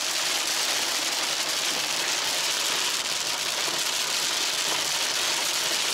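Heavy rain hitting the roof and windshield of a car moving at highway speed, heard inside the cabin: a loud, steady hiss, with road noise beneath it.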